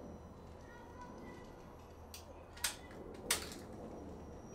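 Three short, sharp clicks a little over two seconds in, about half a second apart, over a quiet low steady hum.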